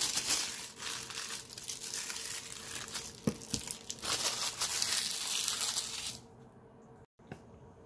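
Plastic packaging wrap crinkling and tearing as it is pulled off a box, stopping about six seconds in.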